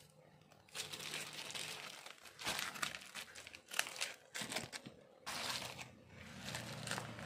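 Foil-lined packet and plastic mailer packaging crinkling and rustling as they are handled and cut open with scissors, with irregular sharp crackles.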